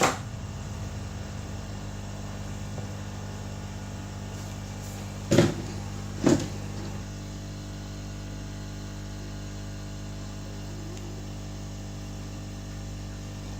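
Hot air gun running steadily, a fan hum with a steady low tone, used to heat and loosen a phone's display. Two short knocks about five and six seconds in.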